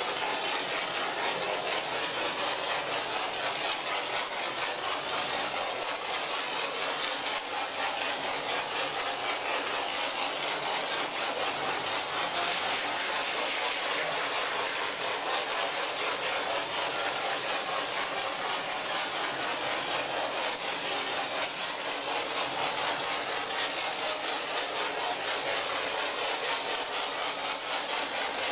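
Mortar-spraying machine projecting chapisco (cement roughcast) through its air-driven spray gun: a steady, loud hiss of compressed air and sprayed mortar, without a break.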